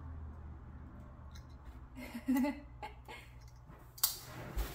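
Soft clicks and handling noise of a pocket watch being turned over in the hands, with a louder rustle about four seconds in.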